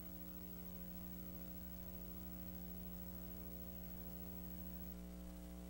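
Faint, steady electrical mains hum with a light hiss underneath, unchanging throughout.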